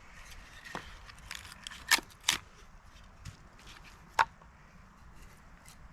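Chopping, a blade striking wood: a few sharp, irregular knocks, the loudest two about two seconds in and another about four seconds in.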